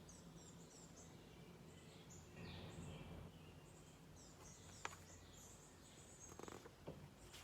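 Near silence: faint room tone with a few faint high chirps and one soft click about five seconds in.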